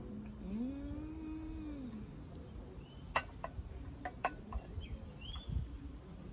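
A low, drawn-out 'mmm' hum that rises and falls in pitch, then sharp clicks of a metal fork against a ceramic bowl as spaghetti is stirred and twirled, with a short high chirp near the end.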